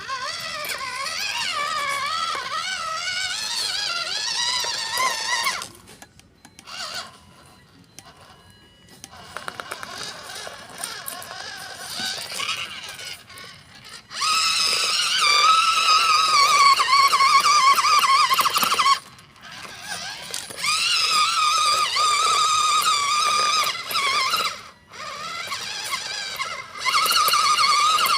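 Electric motor and gearbox of an MN99S RC off-road truck whining, the pitch wavering up and down as the throttle is worked on a climb. It stops abruptly several times, with a quieter stretch of faint clicks in the first half.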